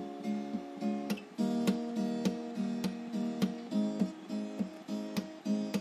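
Background music: acoustic guitar strumming in a steady rhythm.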